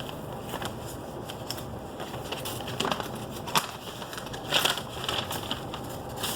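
Packaging being handled and opened, crinkling and crackling in irregular bursts; the loudest crackle comes about four and a half seconds in.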